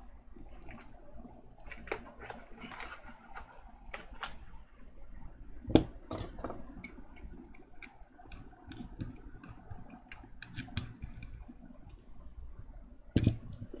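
Small metal hand tools clicking and clinking against a circuit board and workbench during cleaning of an HDMI dongle's connector pads, with scattered light taps and two sharper knocks, one about six seconds in and one near the end.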